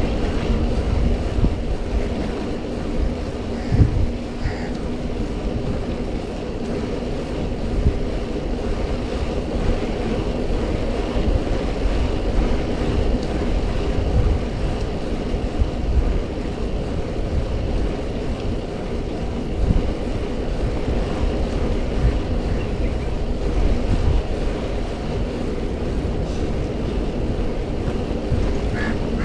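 Wind buffeting the microphone of a bicycle riding along a paved track, a steady rushing noise with a low rolling hum beneath it.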